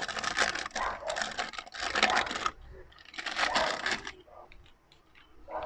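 Plastic sachet of powdered milk crinkling as it is squeezed and shaken out, in two spells: a long one, a short pause about two and a half seconds in, then a shorter one that ends with a few faint ticks.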